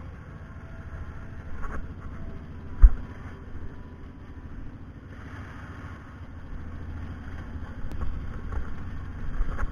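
Four-wheeler engine running steadily, with a single sharp thump about three seconds in and a few lighter knocks later on.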